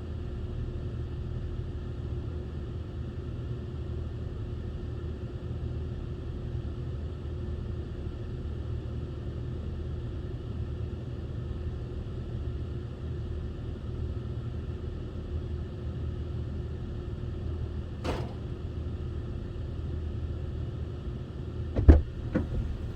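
A vehicle engine runs with a steady low rumble. There is a faint click about three-quarters of the way through and a sharp thump just before the end.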